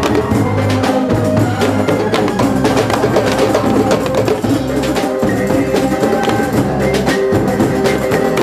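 A rebana ensemble: several hand-held frame drums struck by hand in a quick, dense rhythm, with held pitched notes layered over the drumming.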